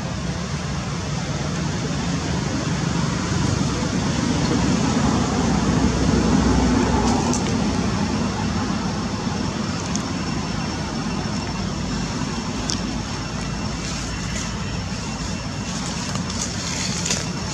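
Steady background road-traffic noise that swells about five to seven seconds in, as a vehicle passes, then eases off.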